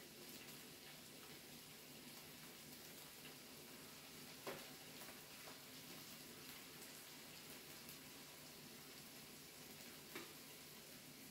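Food sizzling faintly on a tabletop Korean barbecue grill, a steady hiss with fine crackling. Two sharp clicks stand out, about four and a half seconds in and again near the end.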